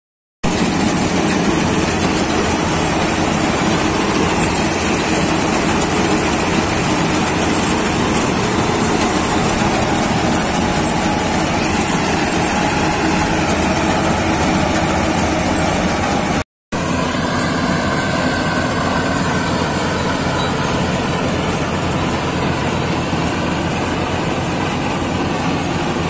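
Combine harvester running steadily while cutting wheat: a continuous drone of engine and threshing machinery. It breaks off for a moment about two-thirds of the way through, then carries on.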